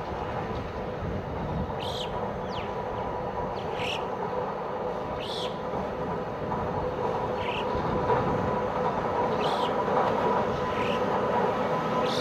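Pilatus Railway electric rack railcar climbing the steep cog track: a steady running noise with a held humming tone, growing louder as it approaches. Short high squeaks come every second or two.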